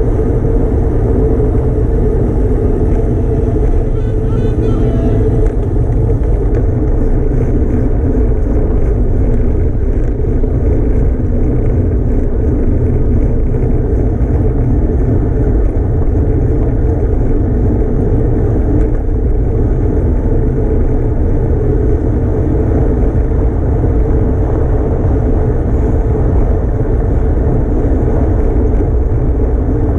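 Steady low rumble of wind buffeting the camera microphone on a bicycle ridden at speed, with some tyre and road noise under it.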